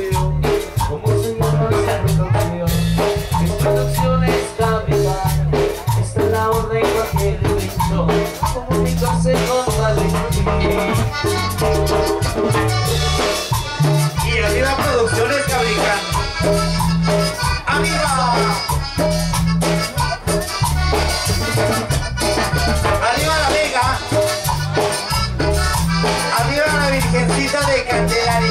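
Upbeat Latin dance music with a steady beat and heavy bass, a gliding melody line coming in about halfway through.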